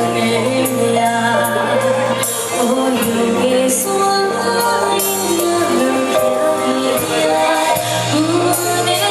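Live band music: a pop song with a melodic lead line over held bass notes.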